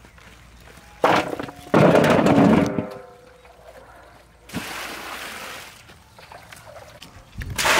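Raw chicken wings and sweet potatoes tipped from woven baskets into large aluminium basins: two heavy dumps about a second apart, the second setting the metal basin ringing. Water splashes a little past halfway and again, louder, near the end.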